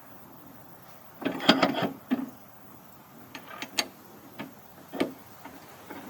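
A quick clatter of knocks about a second in, then single knocks every second or so, with no saw or engine running.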